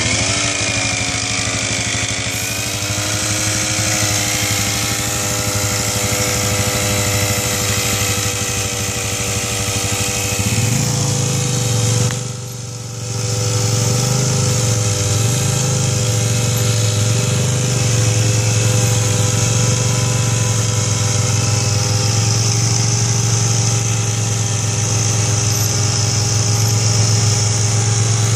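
Small petrol engine driving the pump of a trailed boomless spray tank, running steadily at high speed, together with the engine of the quad bike that tows it. The engine note drops and settles in the first couple of seconds, and a deeper engine note joins about ten seconds in.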